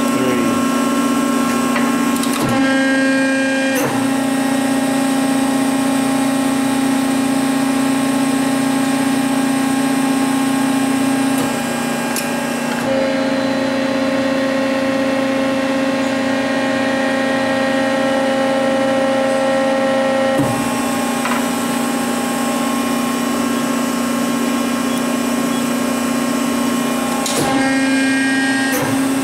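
Hydraulic pump of a 100-ton Accurpress press brake running with a steady hum while the ram cycles slowly. The tone changes several times, each change marked by a click, as the stroke changes speed and direction.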